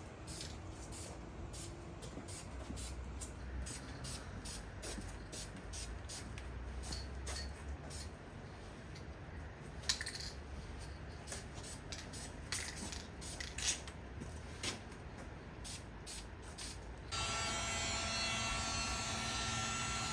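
Aerosol spray paint can being used on turbocharger housings: hissing sprays with many short rattles and clicks, about three a second. Near the end a steady electric buzz cuts in abruptly.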